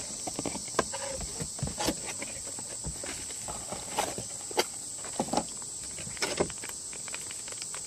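Packaging and paperwork being handled while a box is unpacked: scattered rustles, light taps and clicks. A steady high-pitched hiss runs underneath.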